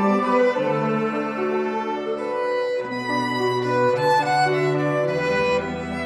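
A small string ensemble of violins and a cello playing live, with held bowed notes that change about every second. The cello's low notes sit under the violins' melody.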